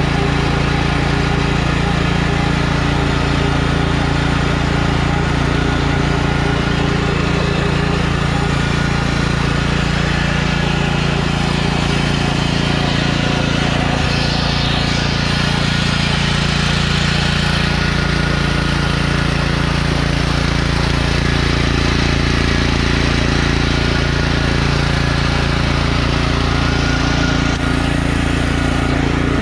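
Engine of a repowered Scotts by John Deere lawn tractor running steadily while the tractor drives along in fifth gear, its pitch and loudness holding even.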